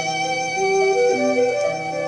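Instrumental break of a Korean folk ballad: a bowed violin plays a melody of held notes over accompaniment.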